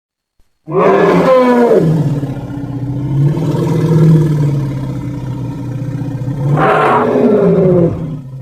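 Elephant roaring: about a second in, a higher cry that falls in pitch settles into a long, low, steady roar, which swells into a second falling cry near the end before dying away.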